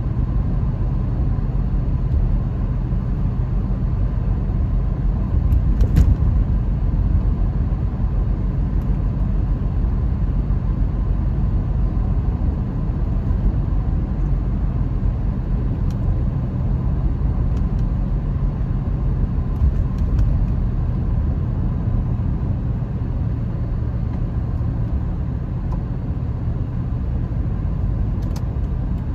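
Steady low rumble of a car driving at highway speed, road and engine noise heard from inside the cabin, with a brief sharp tick about six seconds in.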